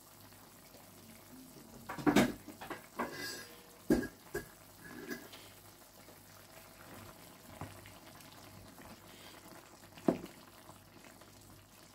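Wooden spoon knocking and scraping against a stainless-steel electric pot while a chicken curry is stirred, a handful of sharp clunks spread through, loudest about two, four and ten seconds in. Underneath, the curry simmers faintly.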